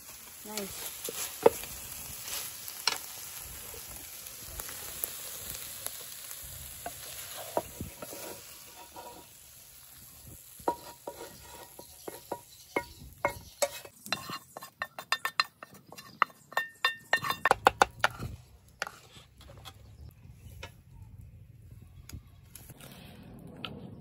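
Chopped vegetables sizzling in a frying pan while a wooden spoon stirs them. About halfway through comes a run of quick clicks and scrapes as the spoon scrapes the cooked vegetables off the metal pan into a clay bowl.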